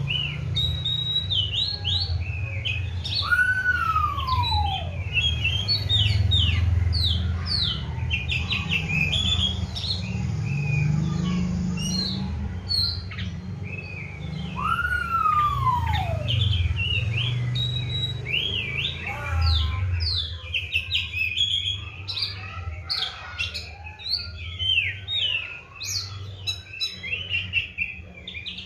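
Oriental magpie-robin (kacer) singing in full song: a fast, unbroken run of varied chirps and short whistles, with two long falling whistles. A low rumble underlies the song until about two-thirds of the way through, then drops away.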